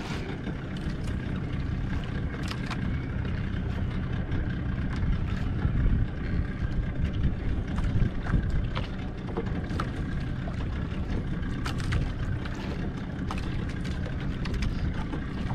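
Steady wind rumble on the microphone with water washing around an outrigger fishing boat at sea, broken by scattered small clicks and knocks.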